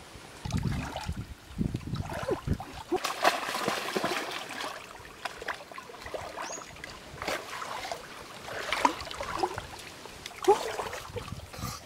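Shallow stream water splashing and sloshing as a person wades and handles a mesh fish-trap net in it, with irregular gurgles and trickling.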